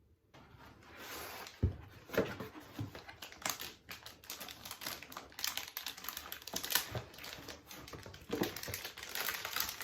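Battery packaging being handled and unwrapped: irregular crackling, rustling and clicking of wrapping and foam, with a sharp knock about one and a half seconds in.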